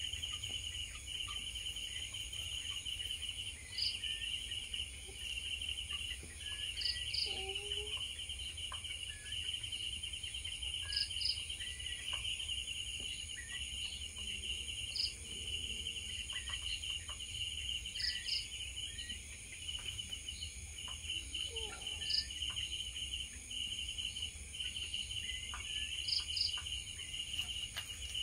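Insects chirping steadily: a continuous pulsing trill, with a short double chirp every few seconds, over a low hum.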